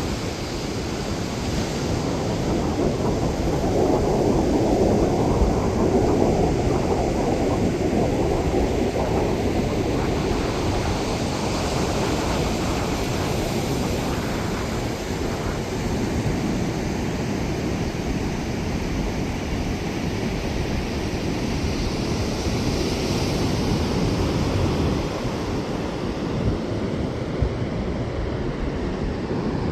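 Ocean surf washing on a beach, a steady rushing noise, with wind rumbling on the microphone.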